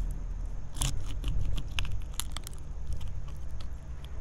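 Serrated knife cracking and crunching through the bony collar hinge of a tautog (blackfish): a run of sharp cracks and snaps, the loudest about a second in.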